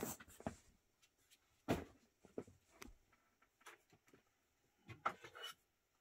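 Faint handling sounds from a die-cast model excavator being moved on a tabletop: scattered light clicks and taps, a sharper knock about two seconds in, and a short run of rustling and clicking about five seconds in.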